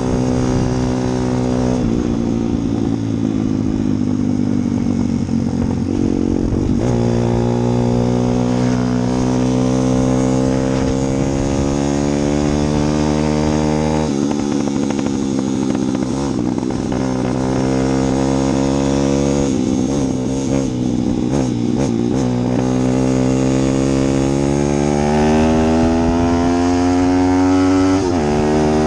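A vehicle engine running continuously, its pitch slowly climbing and then dropping back several times.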